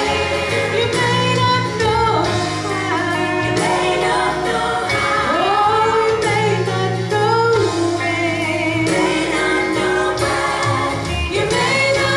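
A woman singing a gospel song, holding and sliding between long notes, over instrumental accompaniment with steady bass notes.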